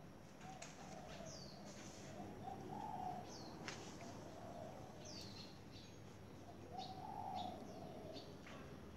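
Faint birdsong: doves cooing in soft repeated hoots of about half a second each, with short high falling chirps from small birds scattered between them.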